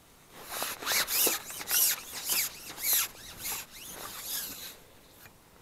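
Carbon fishing pole being shipped back, its sections sliding through the angler's hands and over his jacket sleeve: a run of about nine rasping rubs, roughly two a second, fading near the end.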